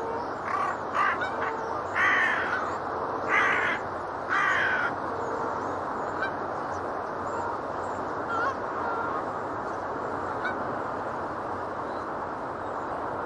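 Seagulls and geese calling: a run of five loud, harsh calls in the first five seconds, then only a few faint calls, over a steady background noise.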